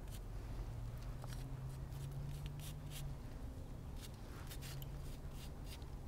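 Gloved fingers smearing and dabbing wet Satanite refractory mortar onto a block: faint, scattered scraping and rubbing sounds over a low steady hum.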